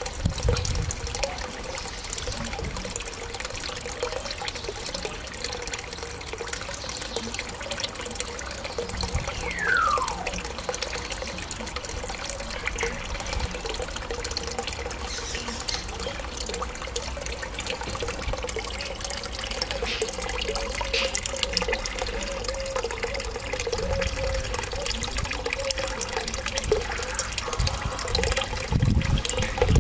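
Steady trickling of running water with a faint steady hum. About ten seconds in comes a single falling whistle from an African grey parrot, and there are low bumps near the start and near the end.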